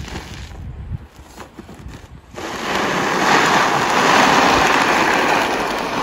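Snow shovels scraping and pushing snow over asphalt: a few short scrapes and knocks, then from about two and a half seconds in one long, continuous scrape as a shovel blade is driven along the pavement with a load of snow.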